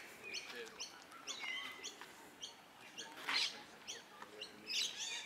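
Birds chirping and calling in many short notes and quick pitch glides, with one brief harsh call or rustle about three seconds in, louder than the rest.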